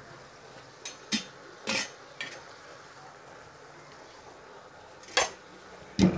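Metal kitchenware clinking and knocking: a small steel bowl of hot coals and utensils being handled in the cooking pot to smoke the chicken. There are several clinks in the first couple of seconds, then a long pause, then two more near the end, over a faint steady hiss.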